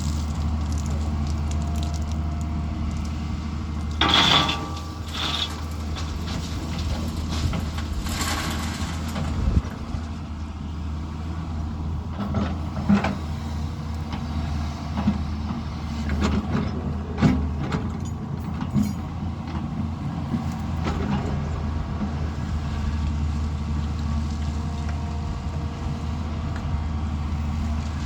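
Heavy diesel construction machinery running with a steady deep engine drone. Two short hissing rushes come about four and eight seconds in, and scattered knocks and clanks follow in the middle.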